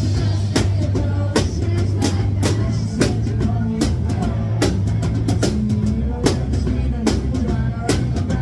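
Live band playing, heard up close from the stage: electric bass guitar loud and steady in the low end under a drum kit keeping a beat of about two hits a second.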